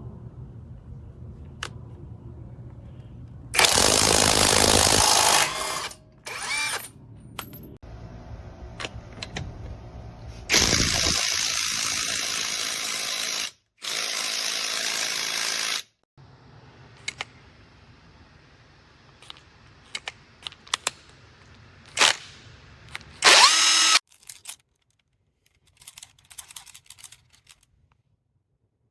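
AOBEN 21V cordless impact wrench run in four short trigger bursts, each starting and stopping abruptly, with small clicks and knocks between them.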